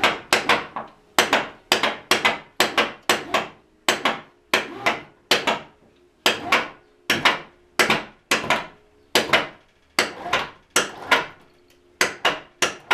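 Electric come-along hoist lifting a motorcycle's front end by a strap: a steady run of sharp clicks, about two a second, each ringing briefly.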